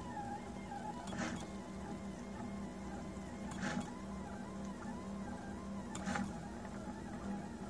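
Prusa Mendel RepRap 3D printer's stepper motors whining as the print head traces the curved walls of a vase, the pitch sliding up and down with each move. A short noisy burst comes about every two and a half seconds, three times.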